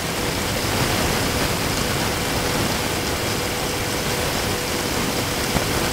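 Steady hiss with a faint steady hum underneath.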